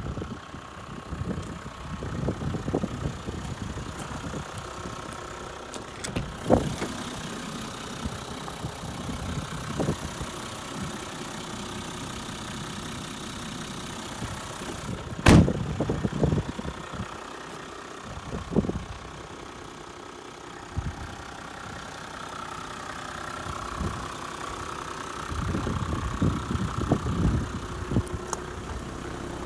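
Toyota Coaster bus's 1HD-FTE 4.2-litre inline-six turbodiesel idling steadily, with a few sharp knocks over it, the loudest about halfway through.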